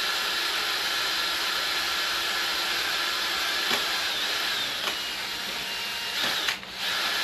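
Compressed-air spray gun hissing steadily as it sprays Raptor protective coating, with a faint high whine over the air noise; the air cuts off for a moment near the end and then starts again.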